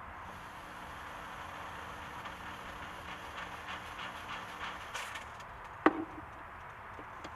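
Chauvet Hurricane 700 water-based fog machine firing: its pump gives a steady buzzing hum with a thin hiss as it pushes smoke through the hose into the engine's intake, stopping about five seconds in. About a second later comes a single sharp click.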